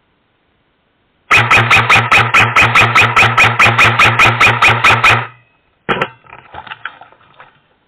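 Airsoft electric gun firing one long full-auto burst of about four seconds: a steady motor whine under a rapid, even string of shots at about five or six a second. A sharp click follows, then faint handling noise.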